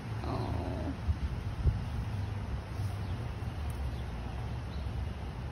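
Wind buffeting the microphone in a steady low rumble. About half a second in comes a short call that falls in pitch, and a couple of soft knocks follow over the next second as the nest is handled in the branches.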